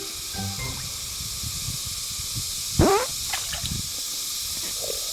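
Shallow water sloshing with soft knocks, and one loud, short plop into water about three seconds in.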